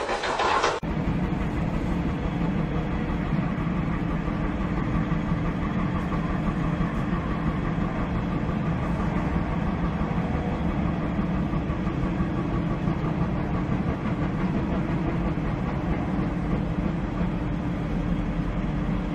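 Excavator's diesel engine running steadily at an even speed while the bucket is held still just above the ground. Under a second in, it cuts in abruptly, replacing a hissier sound.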